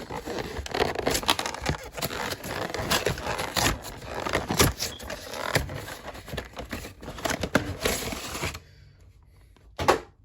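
Packaging of a Pokémon trading-card box being scraped and torn open by hand: a dense run of scratching and crackling with many small clicks. It stops about eight and a half seconds in, and one sharp click comes near the end.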